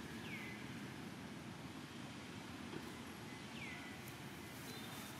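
A bird's short, high whistle falling in pitch, heard twice about three and a half seconds apart, over a steady low rumble of outdoor background noise.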